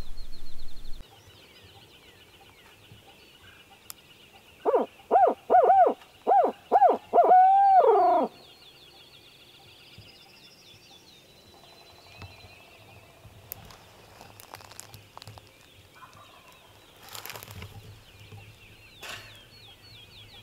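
Barred owl 'who-cooks-for-you' hoot given as a turkey hunter's locator call, to make a gobbler answer: about seven short rising-and-falling hoots, then one longer drawn-out hoot that falls away at the end.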